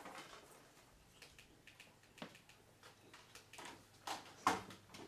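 Faint handling noises at a table: scattered soft clicks and rustles, with a sharper tap about four and a half seconds in.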